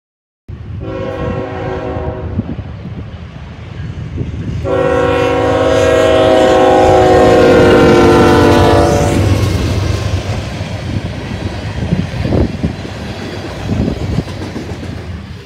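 CSX freight locomotive's air horn sounding a multi-tone chord: a short blast, then a long, loud blast about four seconds in, over the rumble of the passing locomotives. After the horn stops, the steady rumble and clatter of freight car wheels on the rails carries on, with a few sharp knocks near the end.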